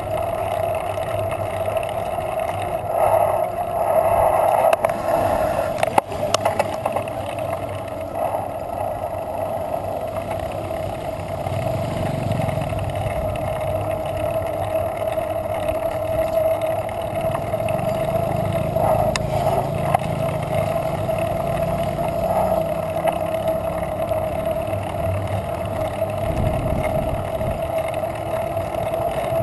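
Muffled wind and road noise on a bicycle-mounted action camera riding on pavement, with a steady hum throughout. There are a few knocks around three to six seconds in, and a motorcycle engine adds a low rumble through the middle stretch.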